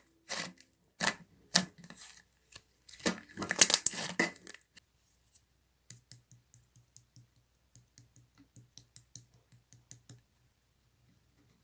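Slime being squished and poked by hand, making a quick run of sharp clicky pops. The pops are loud for the first four seconds or so, then turn into a fainter scatter of small pops that stops about ten seconds in.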